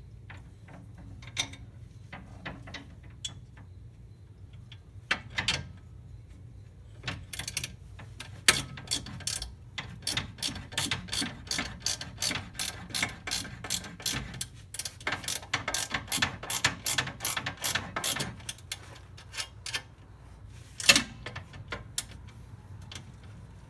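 Hand ratchet wrench clicking in runs of quick, even strokes, about four clicks a second, as a sway bar mounting bolt is worked into place. Scattered metal clinks and knocks come before and after, with one sharp knock about three seconds before the end.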